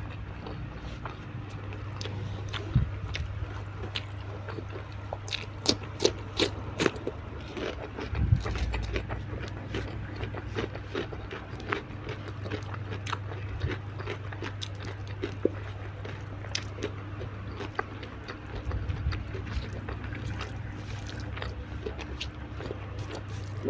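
Close-miked eating of fried tilapia with raw vegetables: irregular crisp bites and crunching chews, thickest about five to seven seconds in, with a dull thump around eight seconds. A steady low hum sits underneath.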